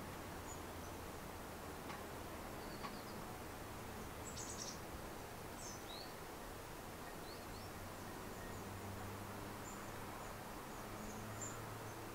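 Outdoor ambience: a steady faint hiss with several short, high bird chirps scattered through it, and a faint low hum that fades in and out.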